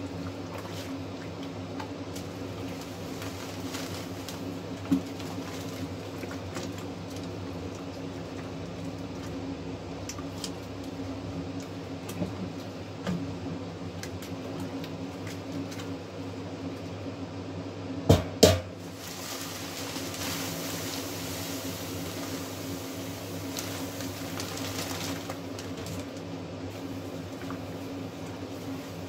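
Malt being tipped from a plastic bag into the mash a little at a time, over a steady machine hum with several pitches. A pair of sharp knocks comes just past the middle, followed by several seconds of hiss from pouring grain.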